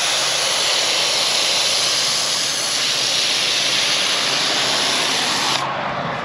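IK Foam Pro 2+ pressurised hand-pump sprayer spraying foam from its nozzle with the wet pickup tip fitted, a loud steady hiss. The spray cuts off sharply about five and a half seconds in as the trigger is released.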